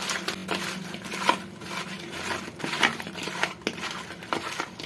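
A hand mixing fried soya chap pieces with curd and spice powders in a plastic bowl: irregular soft squishes and light clicks, over a faint steady hum.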